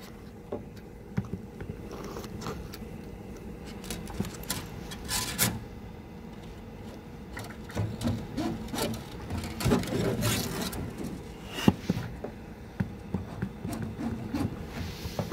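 Irregular handling noise: rubbing and scraping with scattered clicks, and one sharp click about two-thirds of the way through.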